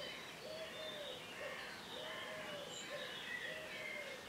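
Birds singing: a dove cooing in a steady repeated series, about one low coo a second, with other songbirds chirping and whistling higher above it.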